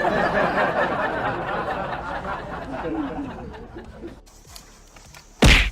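Several people's voices laughing and chattering, fading away over a few seconds, then one loud, sudden noise near the end.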